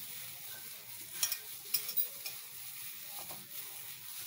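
Gloved hand mixing a crumbly masala of crushed fried onion and spices in a glass dish: a crinkly rustle of plastic glove and crumbly mix, with a few sharp crackles.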